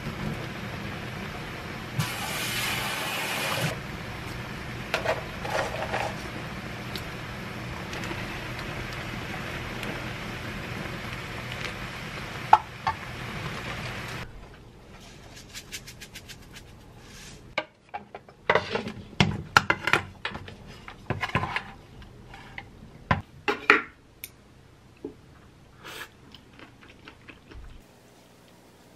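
A pan of spicy rabokki sauce simmering and sizzling on a gas stove over a steady hum, with louder sizzling from about two to four seconds in. About halfway through this gives way to quieter eating sounds: chopsticks and a spoon clicking against a bowl.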